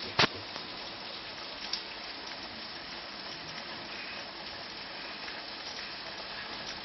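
Hard rain falling steadily, an even hiss. A sharp click about a quarter second in, with a fainter one shortly after.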